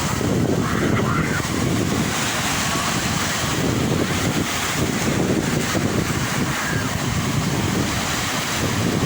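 Sea surf: waves breaking and washing on the shore in a steady, continuous rush that swells and eases, with wind buffeting the microphone.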